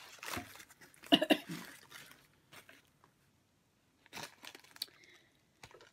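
A fast-food sandwich wrapper, foil-lined paper, crinkling in short bursts as it is pulled open, with two sharp, louder sounds about a second in.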